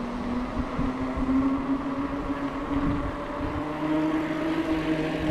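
Giant Stance 2 29er mountain bike rolling along the trail, with a steady hum that slowly rises in pitch over a low rumble.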